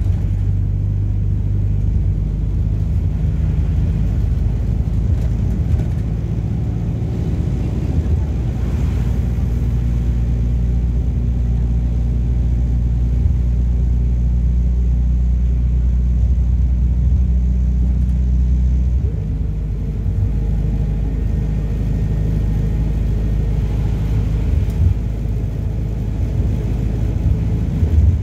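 A MAZ-226 midibus's diesel engine drones steadily while the bus is under way, heard from inside the cabin with road noise. About nineteen seconds in the engine note changes and drops a little, then runs on.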